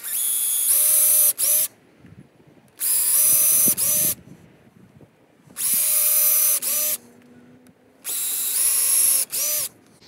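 Cordless drill pre-drilling screw holes in a wooden gate post: four separate runs of the motor, each about a second and a half with a steady pitch, and each ending with a brief break and a short restart.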